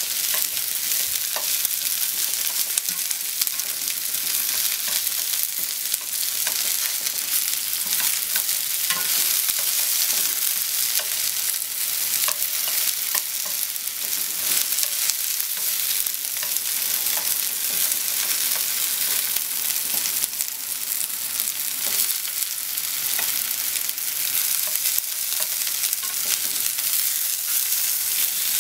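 Floured pork slices and sliced onion sizzling steadily in a frying pan. Scattered light taps and scrapes come from cooking chopsticks stirring the onions and turning the pork.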